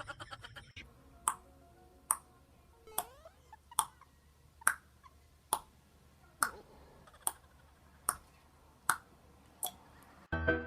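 A series of about eleven sharp clicks, evenly spaced a little more than one a second. Piano music starts near the end.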